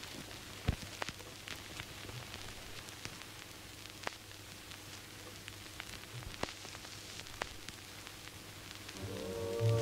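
Faint hiss with scattered crackles and sharp clicks over a low hum; music begins near the end.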